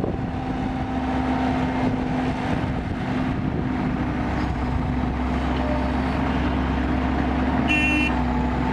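Kobelco excavator's diesel engine running steadily under work, a low drone with a held hum. A brief high beep sounds near the end.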